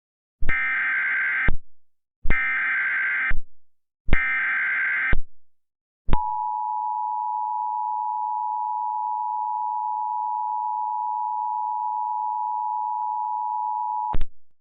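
Emergency Alert System header: three one-second bursts of SAME digital data, each a harsh buzzing squawk. About six seconds in they are followed by the steady two-tone EAS attention signal, which holds for about eight seconds and then cuts off with a short click.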